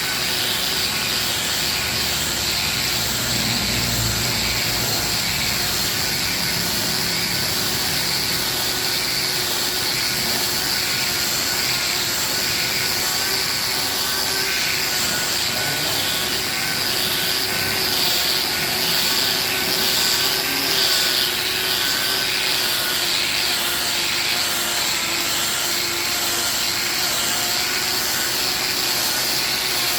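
Hand-held angle grinder running steadily with a steady high whine as it sands a solid-wood chair seat, the disc rubbing across the wood.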